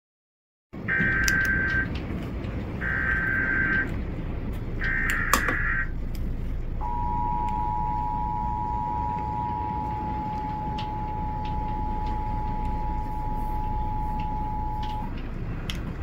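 Emergency Alert System tones over a radio broadcast. After a brief dead gap there are three roughly one-second bursts of the buzzy SAME header data, and then the two-tone attention signal holds steady for about eight seconds over constant radio hiss, signalling an incoming warning.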